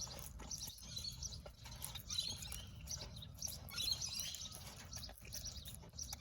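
Dog chewing a hard-boiled egg with its shell: faint, irregular small crunches and clicks, with light chirping in the background.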